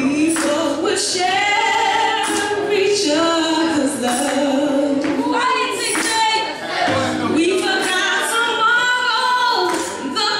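A woman singing live through a microphone, holding long notes that slide and bend in pitch, over electric keyboard chords.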